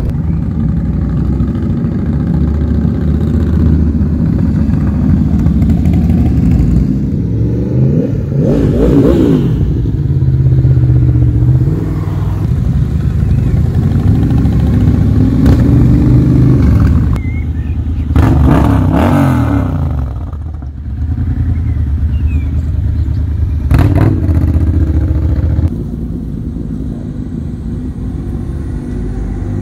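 Motorcycles riding past one after another, engines revving up and fading away, two of them passing close about a third and two-thirds of the way through. Near the end there is one sharp crack.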